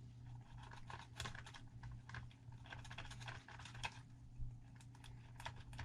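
Knife blade scraping and clicking at the tail of a nylon zip tie while trying to cut it off, a run of small irregular clicks and short scrapes; the knife isn't cutting.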